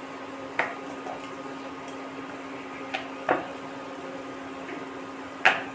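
Wooden rolling pin working a round of dough on a wooden board, with four short knocks of wood against wood, two of them close together around the middle, over a steady low hum.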